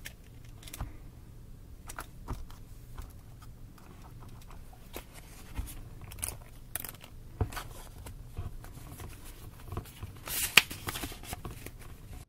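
Paper notebooks handled on a desk: scattered rustles, taps and clicks of pages and covers. A louder burst of page rustling comes about ten seconds in.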